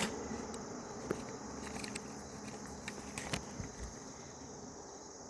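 Insects droning steadily at a high pitch, with a few faint clicks.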